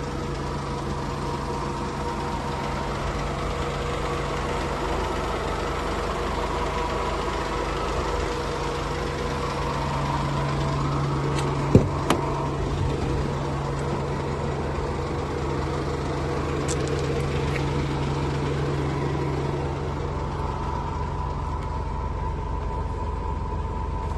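Mercedes van engine idling steadily, with two sharp knocks close together about halfway through.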